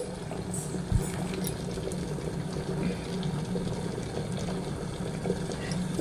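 Water boiling in a Prestige 1.5-litre stainless steel electric kettle: a steady bubbling rush, with a single low thud about a second in.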